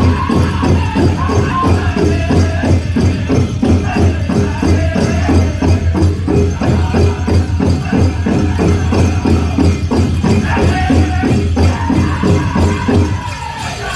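Powwow drum group playing a chicken dance song: a fast, steady beat on a big drum under singing. The overall level dips somewhat near the end.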